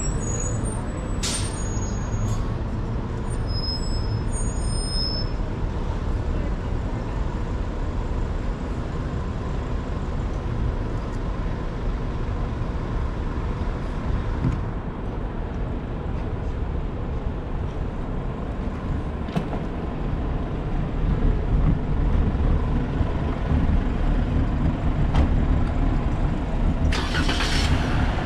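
Downtown street traffic heard from a bicycle: a steady low rumble of passing cars, with a short hiss about a second before the end.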